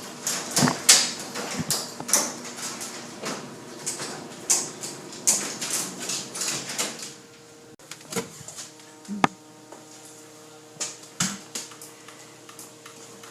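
Irregular clicks and clattering knocks, as of hard objects being handled, denser in the first half, over a faint steady hum.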